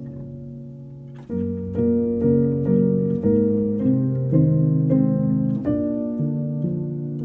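Background instrumental music: plucked-string notes over sustained chords, with a louder run of notes starting about a second in.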